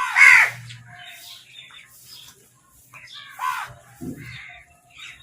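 Crows cawing: a loud, harsh caw right at the start and another about three and a half seconds in, with softer scattered bird calls between.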